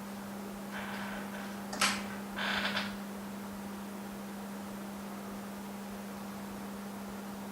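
Steady low electrical hum, with short handling noises about a second in, a sharp click just before two seconds and a brief scraping burst soon after.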